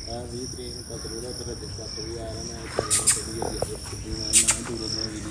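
Insects chirring in a steady, high-pitched pulsing trill, with two short sharp noises about three and four and a half seconds in.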